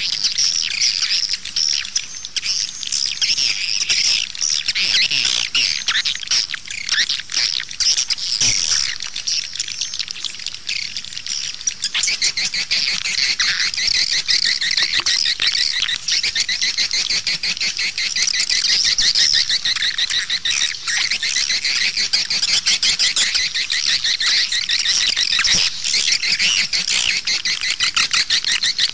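Swiftlets chattering and twittering in a dense, unbroken flock of fast high chirps, thickening about halfway through. It is a swiftlet lure call of the kind played outside a swiftlet house to draw the birds in.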